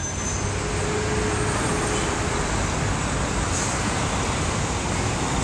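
Steady din of city road traffic, cars and buses running along the avenue below.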